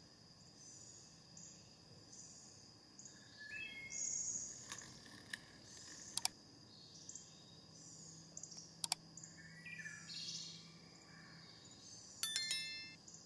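Faint birds chirping and calling, with a steady high tone underneath and a few sharp clicks. About a second before the end comes a short bright ding with clicks: a notification-bell sound effect.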